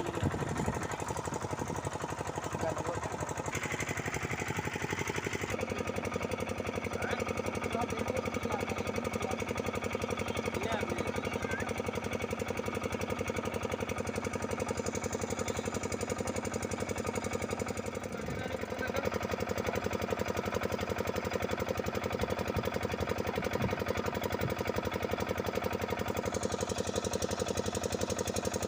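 A machine running steadily with a fast, even pulse. Its tone shifts abruptly about five seconds in and again about eighteen seconds in.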